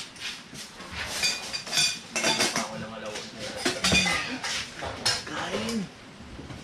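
Spoons and a ladle clinking against a metal wok, bowls and plates as food is dished out and eaten: a string of sharp clinks, several with a short metallic ring.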